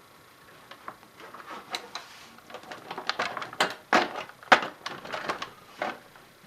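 Irregular clicks, rattles and knocks of a DVD player/amplifier's casing being worked loose and lifted off by hand during disassembly, starting sparse about a second in and growing busier, with the loudest knock after about four and a half seconds.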